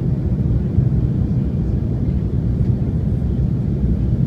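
Steady low rumble of cabin noise inside an Embraer E190 airliner in flight: its two GE CF34 turbofan engines and the rush of air over the fuselage, heard through the cabin.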